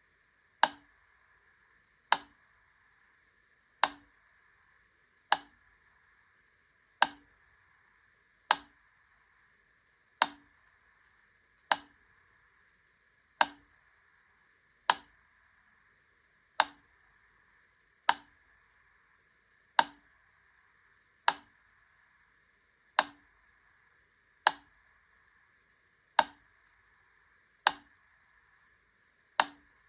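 Wittner Taktell Piccolo mechanical wind-up metronome ticking slowly and evenly, one sharp click about every one and a half seconds, roughly forty beats a minute, over a faint steady hiss.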